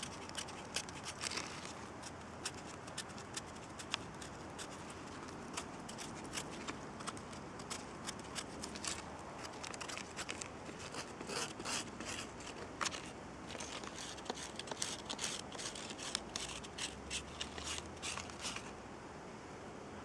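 Knife blade scraping the outer layer of birch bark into fine shavings for tinder: many short, quick scraping strokes in irregular runs, which stop near the end.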